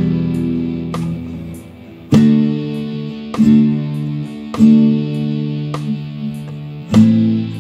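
Chords slowly strummed on an acoustic guitar at about one strum every second or so, each chord left to ring and fade before the next.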